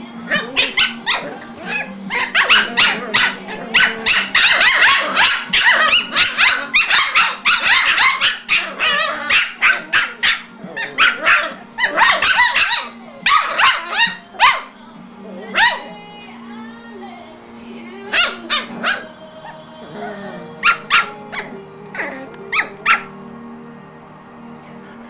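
Cavalier King Charles spaniel puppies yipping and barking in quick, dense volleys as they play-fight, over background music; the yips thin out to scattered ones in the second half.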